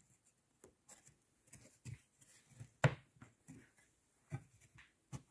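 Light scattered wooden knocks and clicks from the parts of a wooden beehive frame being handled and the bottom bar fitted in, the sharpest knock about three seconds in.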